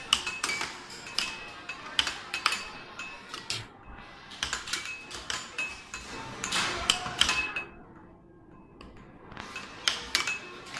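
Air hockey puck and plastic mallets clacking: a fast, irregular run of sharp hits and rebounds off the table rails, each with a short ring, pausing briefly about two-thirds of the way through.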